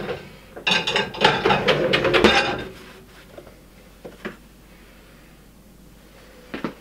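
Dishes and cutlery clattering as they are put into a dishwasher: a quick run of clinks and knocks for about two seconds, then a few light clicks.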